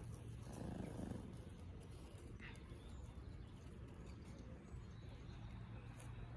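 Domestic cat purring close by, a low steady rumble that swells louder for a moment about a second in.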